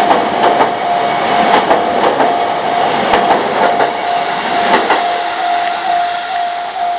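A JR East train running past a level crossing, its wheels clicking over the rail joints, while the crossing's warning bell rings. The train noise dies away about five seconds in, leaving the bell dinging about twice a second.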